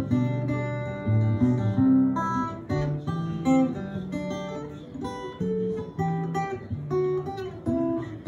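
Acoustic guitar playing an instrumental break between sung verses, a run of picked and strummed notes.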